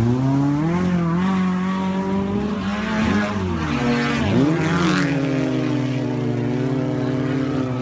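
Off-road vehicle engine revving hard under load through mud: the pitch climbs, dips quickly twice midway, then holds steady at high revs.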